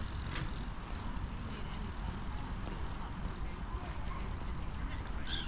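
A steady low outdoor rumble, with a short high chirp rising sharply about five seconds in.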